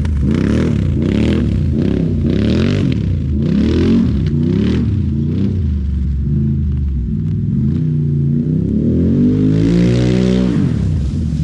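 Four-wheeler engine revving up and down again and again under throttle, then one long rev that climbs from about eight seconds in and drops off sharply just before the end. Short bursts of hissing noise come between the revs in the first half.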